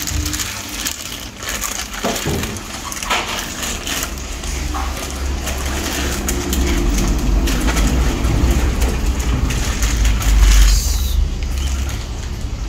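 Plastic fish-transport bag crinkling and rustling, with water sloshing, as a small albino silver arowana is let out of it into the aquarium. A low rumble runs underneath and grows heavier in the second half.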